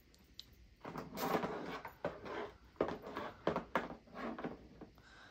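Plastic toys clattering and knocking against a plastic play table as a child handles and puts them away, with several sharp knocks between about two and four seconds in.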